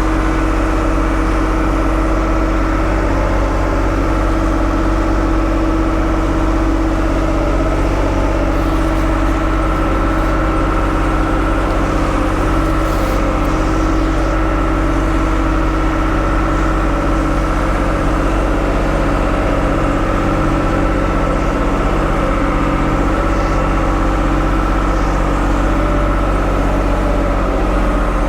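1975 Ford 550 backhoe engine running steadily at a constant speed.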